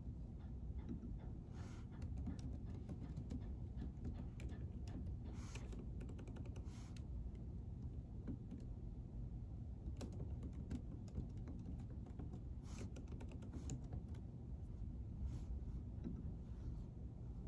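Typing on a keyboard: irregular runs of quick key clicks with short pauses between them, over a steady low room hum.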